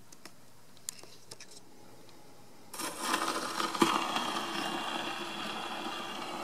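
A few faint clicks, then from a little under three seconds in, a 1926/27 HMV Model 101 portable gramophone running: steady hiss and mechanical noise from the spring-wound motor and the needle on the 78 rpm shellac record, with one sharp click about a second after it starts.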